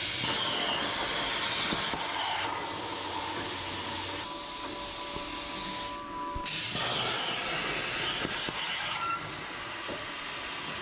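Plasma torch of a CrossFire Pro CNC plasma table cutting 1/8-inch steel plate: a steady hiss, with a brief break about six seconds in.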